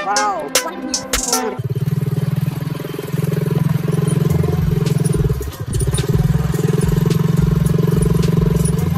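Hip hop music with rapping for the first second and a half, then an engine running steadily, dipping briefly about five and a half seconds in.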